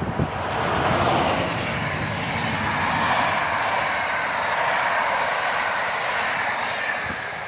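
Intercity passenger train hauled by an EP07 electric locomotive passing at speed: a steady rushing of wheels on rails that swells about a second in and eases slightly near the end.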